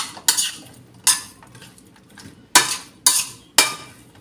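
Clatter in a nonstick frying pan as raw eggplant pieces, okra and chilies are pushed into place: about six sharp knocks at irregular intervals, each dying away quickly.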